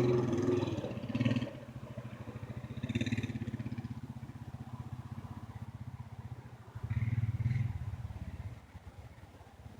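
Kawasaki Teryx side-by-side's engine idling steadily, with a few short louder sounds over it near the start, about three seconds in and about seven seconds in.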